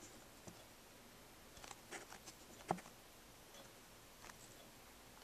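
Near silence with a few faint, short clicks and taps, the loudest about two and a half seconds in.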